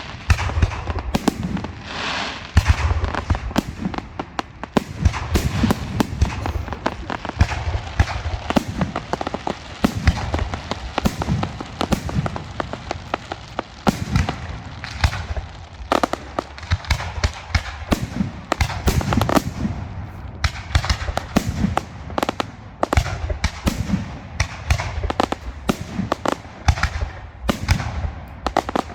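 Aerial fireworks display in a dense barrage: many sharp bangs and cracks a second over deeper thuds of shell bursts, without a break.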